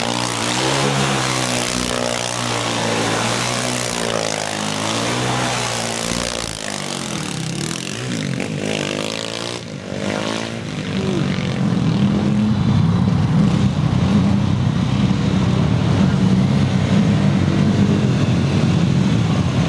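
450cc single-cylinder quad bike engine revving, its pitch rising and falling repeatedly. About halfway through it dips briefly, then runs louder and steadier at higher revs.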